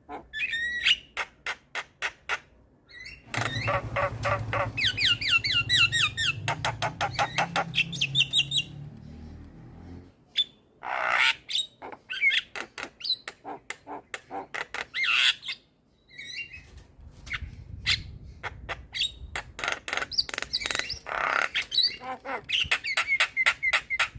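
Javan myna singing a long, varied song of rapid clicking notes, runs of repeated whistled notes and harsh squawks, with brief pauses between phrases.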